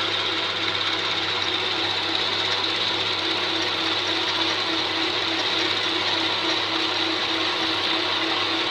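Homemade metal lathe running while a large twist drill, fed from the tailstock, bores into a spinning metal disc in the chuck. A steady machine noise with a steady high whine over a lower hum.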